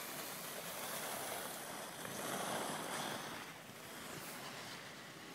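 Skis sliding over packed snow with a rushing hiss that swells about two seconds in, then fades.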